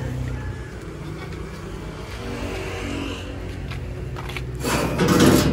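A motor vehicle's engine running steadily as a low hum, with a loud rush of noise and a few sharp knocks starting near the end.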